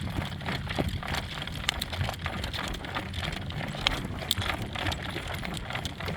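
A horse-drawn cart on the move: a steady low rumble and rattle, with irregular sharp clicks scattered through it.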